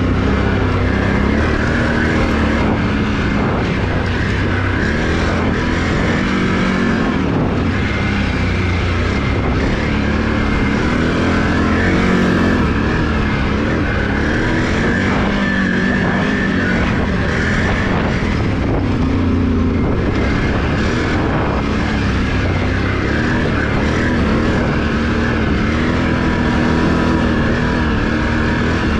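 Can-Am Renegade ATV's V-twin engine running steadily under way, its pitch rising and falling with the throttle.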